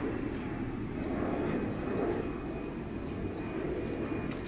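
Steady outdoor background noise, a low rumble, with three short rising bird chirps spread through it.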